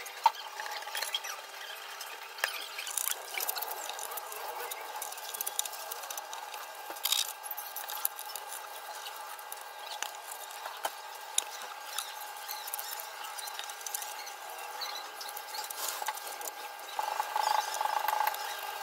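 Scissors snipping and crunching through corrugated cardboard in irregular cuts, with a denser run of crunching near the end. A steady faint hum sits underneath.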